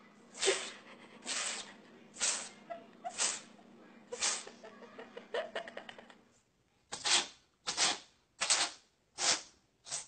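Cat sneezing over and over, about five sharp sneezes roughly a second apart over a faint steady hum. After a short break, a second cat sneezes about five times in a row, a little quicker.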